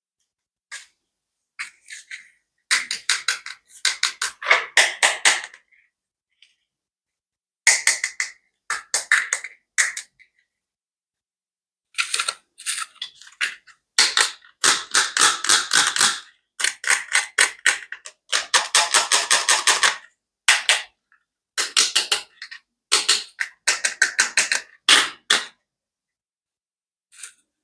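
Toy clicking: rapid trains of sharp clicks and taps in bursts of one to three seconds, separated by short silent pauses, falling quiet for a couple of seconds near the end.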